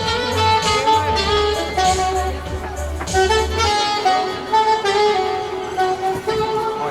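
Background music: a jazzy saxophone-led melody of held notes over a bass line that drops out partway through.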